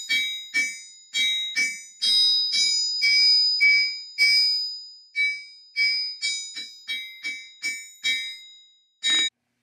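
A small sledgehammer striking the face of a 1928 Soderfors cast-steel anvil about twice a second, each blow leaving a clear, high ring that dies away; the anvil's face has been repaired by welding and milling. After a short lull near the end, one last strike cuts off suddenly.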